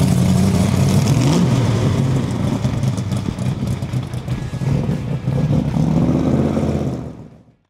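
Shelby Cobra's 427 side-oiler V8 running through its side pipes as the car pulls away, its pitch rising briefly about a second in. The engine sound grows weaker as the car moves off and fades out near the end.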